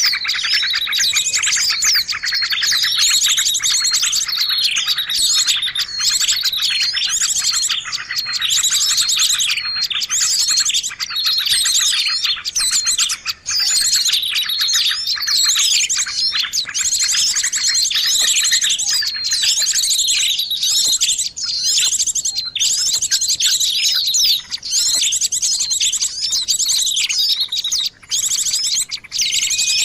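A dense chorus of small birds chirping and twittering in fast trills and quick repeated notes, overlapping without pause; the lower chatter thins out about two-thirds of the way through. It is a bird-lure (pikat) recording, played to draw small birds in for trapping.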